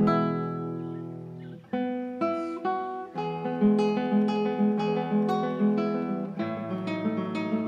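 Solo acoustic guitar music, fingerpicked: a continuous run of plucked notes over held bass notes.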